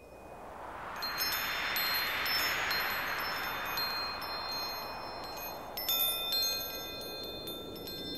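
Wind chimes tinkling, many short high ringing notes overlapping, over a whooshing swell that fades in, peaks about two to three seconds in, dies down and rises again near the end.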